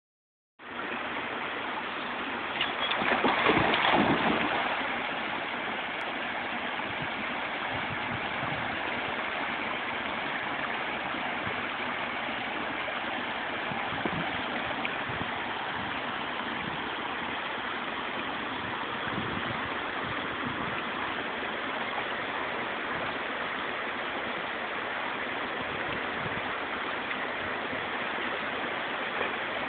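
Steady rushing of water spilling over a small weir into a stream. A few seconds in, a louder stretch of splashing as a German shepherd leaps into the water.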